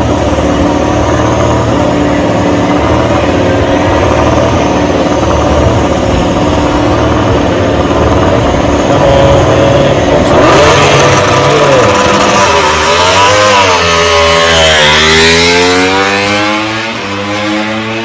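MotoGP racing motorcycle engine, running at a steady note at first. From about ten seconds in it gets louder and its pitch swings up and down several times as the bike accelerates down the straight and passes.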